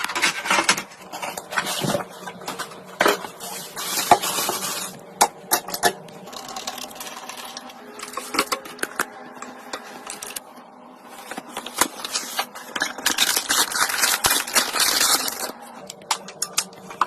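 Irregular clicking, clattering and short scrapes of small hard parts and tools being handled, as in fitting computer components together.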